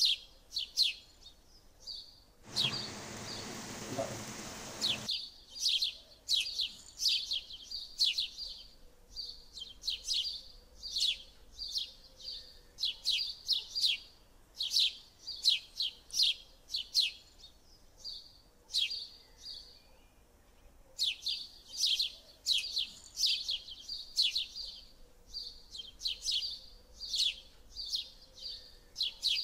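Birds chirping: rapid runs of short, sharp, high chirps that go on almost without a break. About two and a half seconds in, a hiss starts abruptly and cuts off again about two and a half seconds later.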